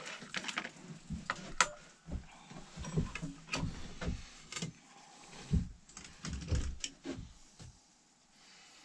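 Spoon, plates and a plastic tub being handled on a wooden table: scattered sharp clicks, taps and dull knocks, including a plastic lid being put on the tub. The sounds thin out near the end.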